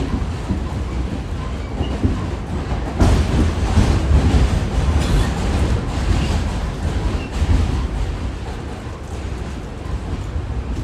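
R46 subway train running along the track, a steady low rumble with wheels clattering over rail joints, louder for a couple of seconds about three seconds in.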